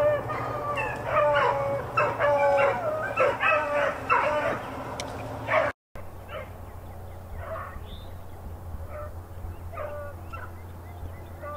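A pack of beagles baying in repeated drawn-out bawls while running a rabbit. The calls are loud and close for about the first half, then after a brief cut they carry on much fainter.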